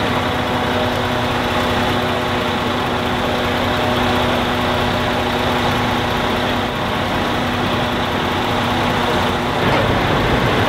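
Diesel engine of a crane truck running steadily, driving the truck's loader crane as it lifts a heavy timber sternpost.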